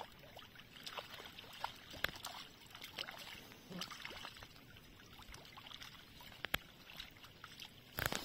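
A hooked arctic char splashing and thrashing in shallow lake water as it is drawn in to the shore, with light sloshing and scattered sharp clicks of pebbles.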